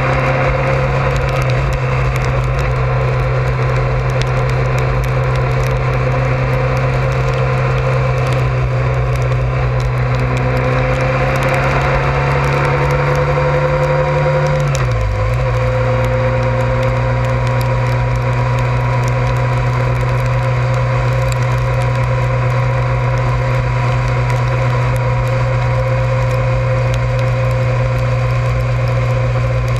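Honda ST1100 Pan European's V4 engine running steadily as the motorcycle travels at road speed, with wind buffeting the camera's microphone. The engine note dips briefly about halfway through and then comes back.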